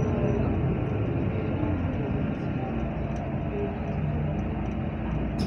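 Interior noise of a Heuliez GX427 articulated bus on the move: steady engine and road rumble, with a sharp click near the end.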